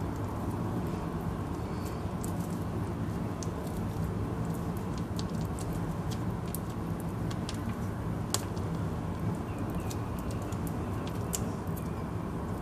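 Steady low background hum, with faint scattered crinkles and taps as a block of cream cheese is squeezed from its wrapper into a blender jug.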